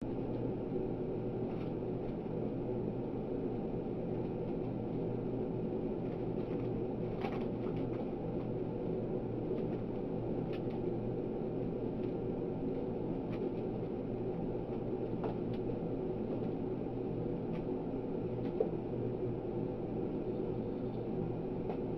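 Steady low room hum, with a few faint taps and clicks from kittens playing among their toys and a plastic top hat.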